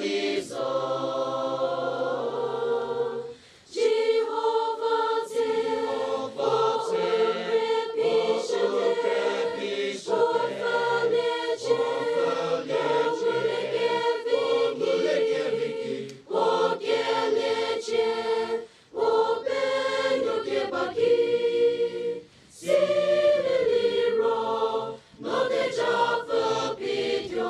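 Mixed choir of young men and women singing a hymn in Angami, unaccompanied, with brief breaks between phrases.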